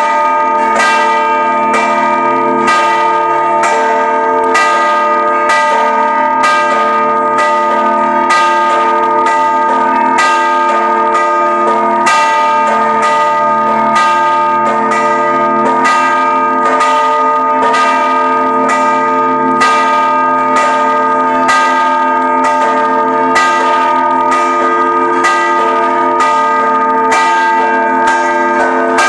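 Church bells of the Żabbar church ringing a festive procession peal: bells struck in a quick, even run, their tones ringing on and overlapping.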